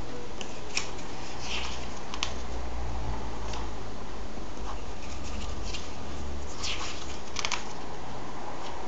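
Glossy comic-book pages being turned and handled by hand: several short paper rustles and flicks, the strongest two close together near the end, over a steady hiss.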